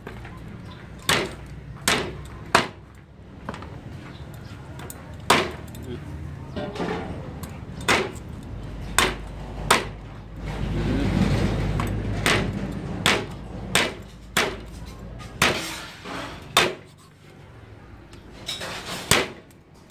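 Meat cleaver chopping meat on a round wooden chopping block: sharp, irregular chops about one a second, with short pauses between runs. A low rumble swells and fades in the middle.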